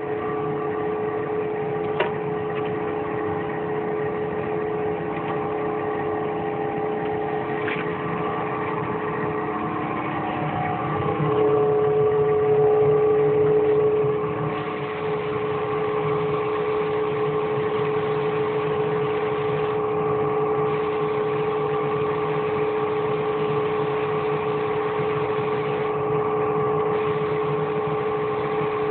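A machine running steadily with a constant pitched hum, growing louder for a few seconds a little before the middle; a single sharp click about two seconds in.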